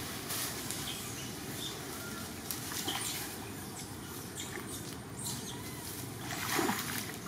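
Wet outdoor ambience with a steady hiss, scattered short high chirps and faint clicks, and a louder burst of noise about six and a half seconds in, as a young monkey wades through a muddy puddle.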